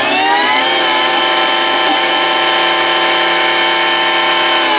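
Thermomix food processor's motor spinning its blade to chop fresh herbs: a whine that rises in pitch over the first second as it spins up, holds steady, and starts to fall away at the very end as it slows.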